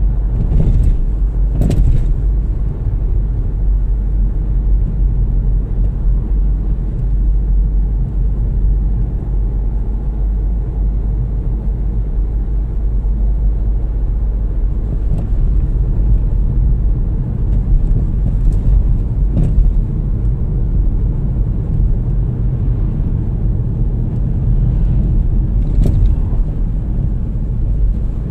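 Steady low rumble of a car's engine and tyres on the road, heard from inside the car, with a few faint clicks scattered through it.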